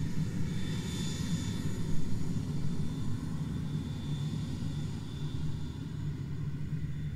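Airplane engines running with a steady low drone and a faint high whine that comes and goes.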